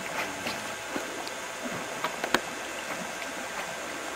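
Lake water lapping at the shore: a steady watery hiss with many small splashes and clicks, one sharper click a little past the middle.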